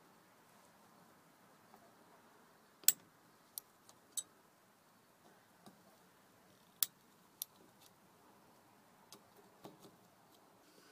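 Scattered light clicks and taps of a T20 Torx tool working the small screws on a steering column, irregularly spaced, with two louder clicks about three and seven seconds in.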